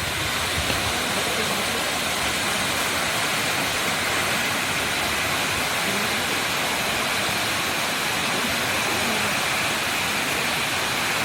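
A 98-metre waterfall falling into its pool: a steady, unbroken rush of water.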